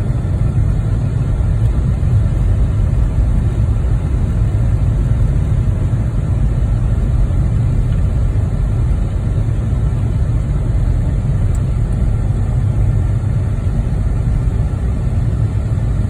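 Car driving on a snow-covered road, heard from inside the cabin: a steady low rumble of engine and tyres.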